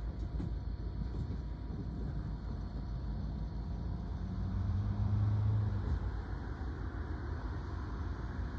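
Distant diesel freight locomotive running as it approaches: a continuous low engine rumble, with a low drone that rises in pitch and swells louder around the middle.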